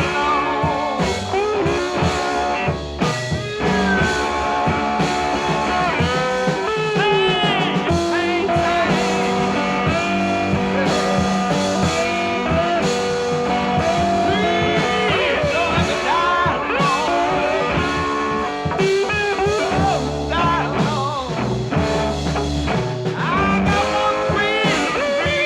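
Blues-rock music with guitar, an instrumental stretch in which the lead line bends and slides between notes.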